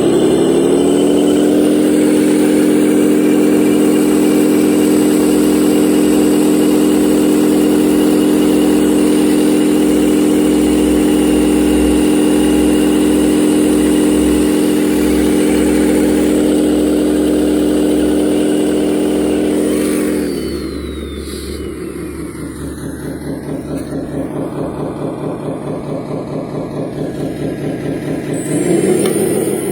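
Radio-controlled hydraulic construction model running with a steady, engine-like drone. About 20 seconds in it drops to a lower, rougher idle, then revs back up near the end.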